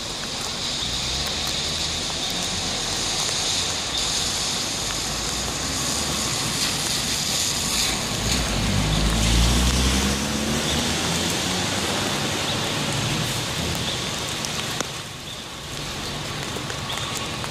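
Steady rain falling on a wet city street, with a vehicle driving past on the wet road about halfway through, the loudest moment, its engine rising and then falling away.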